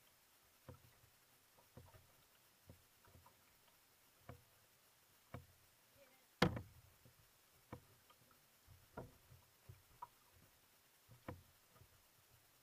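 Small water slaps knocking against the hull of a drifting outrigger canoe, about one a second, with one sharper knock about six and a half seconds in.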